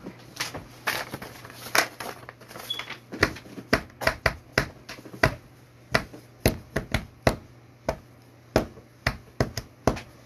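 Hands tapping and slapping on a granite countertop: sharp, irregular taps, a few at first, then coming thick and fast from about three seconds in.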